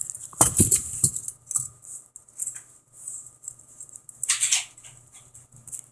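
Steel handcuffs rattling and clicking as their lock is picked, with scattered small metallic clicks and a louder rattle near the start.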